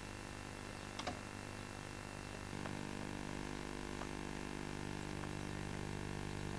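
A steady low hum that steps up a little louder about two and a half seconds in, with a sharp click about a second in and a few faint ticks after.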